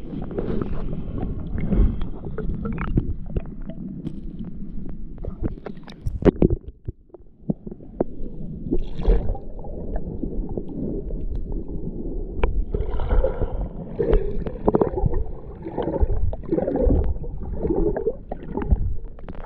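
Muffled underwater sound picked up by a submerged action camera in shallow sea water: low sloshing and gurgling with scattered clicks and knocks.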